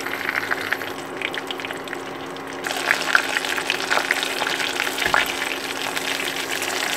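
Chicken pieces deep-frying in hot oil in a small stainless steel pot: a steady sizzle with dense crackling, turning louder and brighter about a third of the way in as the pieces are turned with chopsticks.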